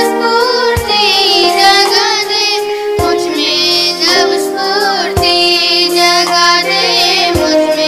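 A young girl sings a Hindi prayer song with vibrato, over instrumental backing of sustained chords and a low beat about every two seconds.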